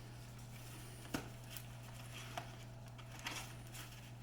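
Wax paper being pulled from its roll and handled: a few light clicks and soft rustles over a steady low hum.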